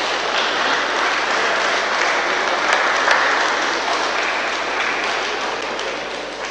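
Spectators applauding after a point ends, the applause swelling and then dying away near the end.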